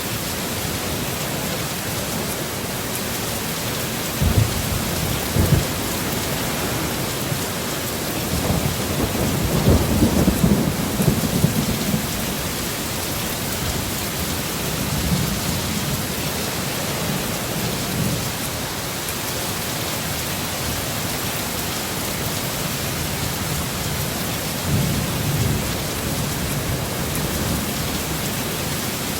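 Heavy steady rain with thunder rumbling several times, the longest roll about a third of the way in.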